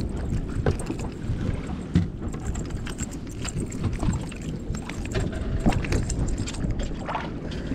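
Wind on the microphone and water moving around a small boat at sea, a steady low rush with scattered small knocks and clicks.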